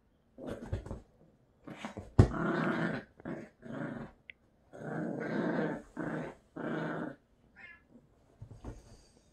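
Yorkshire Terrier play-growling in repeated bouts of about a second each while tugging at a plush toy, with one sharp knock about two seconds in, the loudest sound.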